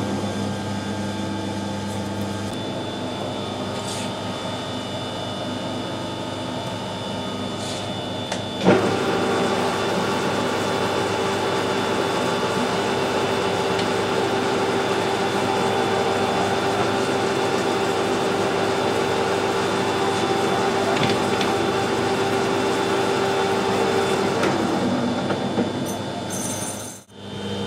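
Metal lathe running steadily while turning the end of a steel CV joint shaft. Its hum changes abruptly about a third of the way in, when a stronger steady tone sets in, and that tone dies away a few seconds before the end.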